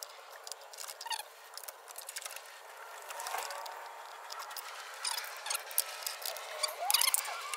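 Spark plug wires being handled and routed by hand: scattered small clicks and rustles, with a couple of short rubbery squeaks, the clearest near the end.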